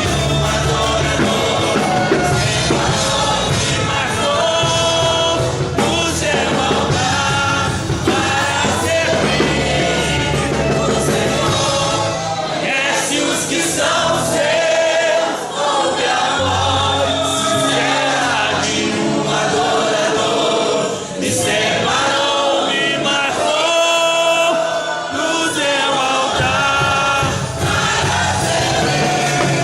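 Worship song: a lead vocal and group singing over a full band.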